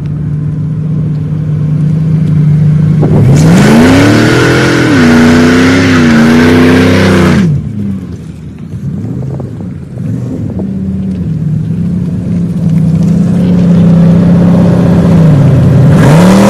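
Pickup truck engine revving hard during a burnout, its pitch climbing and wavering at high revs for about four seconds with a loud hiss of spinning tyres, then dropping off sharply. The engine drones lower after that and revs up again near the end.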